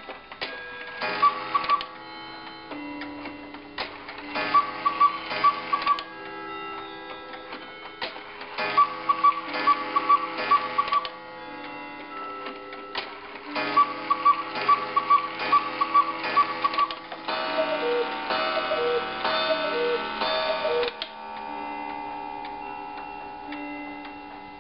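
Antique quail and cuckoo clock striking as its hands are turned: the quail's bellows call sounds in successive bouts of short, high notes at the quarters, and near the end a run of lower two-note cuckoo calls sounds at the hour. Steady clock ticking and a lingering ring run underneath.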